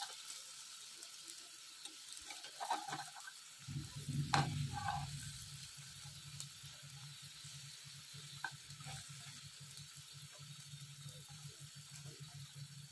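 Oil sizzling in a frying pan under a patty covered in egg, with a few knocks of a utensil against the pan, the loudest about four seconds in. A low steady hum starts just before that and keeps on.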